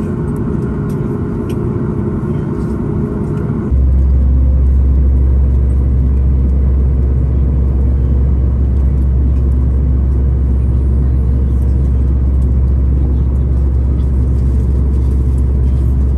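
Steady low mechanical rumble that switches abruptly, about three and a half seconds in, to a louder, deeper, even rumble.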